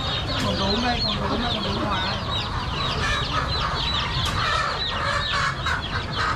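Live chickens at a poultry seller calling and clucking, many short high calls repeating a few times a second.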